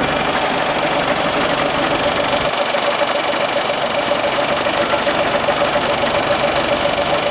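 An engine running steadily with a rapid knocking pulse and a constant mid-pitched hum.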